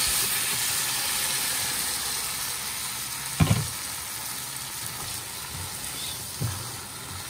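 Cooked mung beans and their liquid poured over pork spare ribs and sautéed aromatics in a hot nonstick pot, sizzling hard at first and dying down steadily. A spatula knocks against the pot twice, about three and a half seconds in and near the end.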